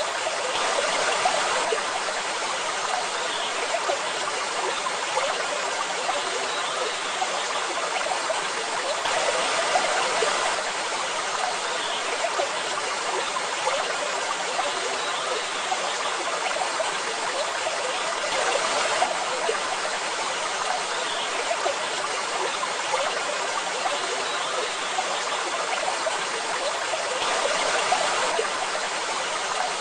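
Waterfall: a steady rush of falling water, swelling briefly about every nine seconds.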